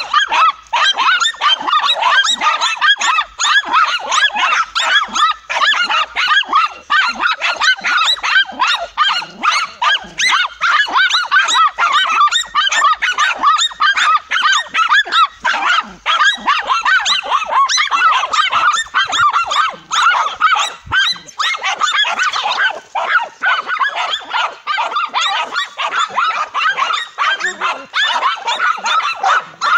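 Several dogs barking and yapping rapidly without a break, baying a cornered tegu lizard.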